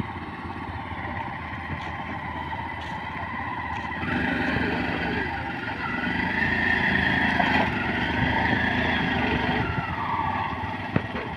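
Small engine of a CNG auto-rickshaw running under load as the three-wheeler churns through deep mud. It gets louder about four seconds in and eases off near the end.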